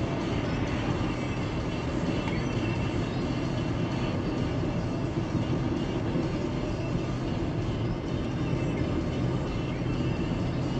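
A car on the move, with a steady, even rumble of road and engine noise.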